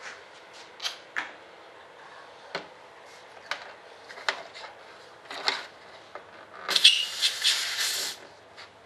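Light clicks and knocks of hands handling wiring connectors and parts inside an RC jet model's fuselage, then a louder hiss lasting about a second and a half near the end.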